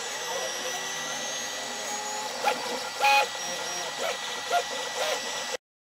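FDM 3D printer printing: a steady fan hiss under the whine of its stepper motors, which glides up and down in pitch as the print head moves. Several short, louder chirps come from quick moves from about two and a half seconds in, and the sound cuts off suddenly near the end.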